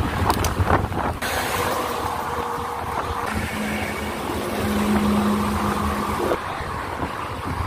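Road traffic passing on a highway, with wind rushing over the microphone of the phone mounted on a moving bicycle. A steady low drone sounds from about three to six seconds in.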